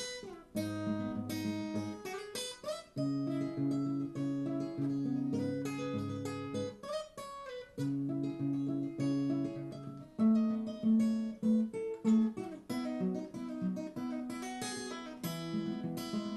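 Acoustic guitar strummed in a steady rhythm, playing a chord progression as an instrumental break between sung verses.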